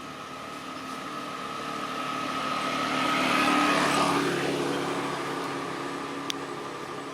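A motor vehicle passing by: its engine and tyre noise swell to a peak about halfway through, then fade away. A single sharp tick near the end.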